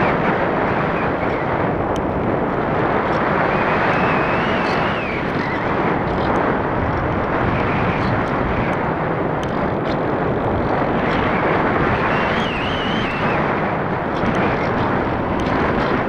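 Steady rushing airflow over the microphone of an action camera riding on a Parkzone Radian RC glider in flight. A faint wavering high whine comes and goes a few times.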